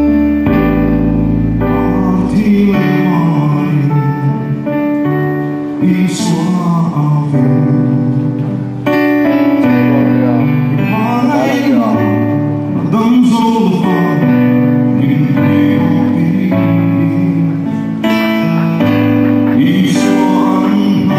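A man singing a gospel song in Mizo into a microphone, in phrases with a wavering melody, over steady sustained accompaniment chords.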